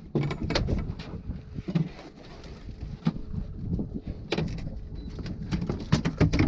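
Wind rumbling on the microphone, with a scattering of sharp knocks and clicks, most of them bunched near the start and the end.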